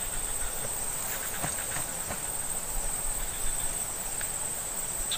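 Steady high-pitched chorus of insects droning without a break, with a few faint clicks about a second in.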